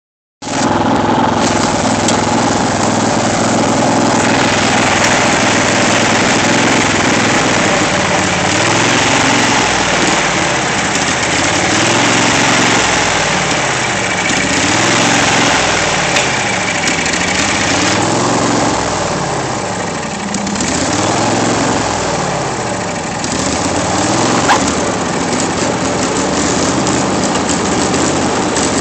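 Petrol lawn mower engine running, its speed rising and falling over and over about every two seconds: the engine is hunting rather than holding a steady speed.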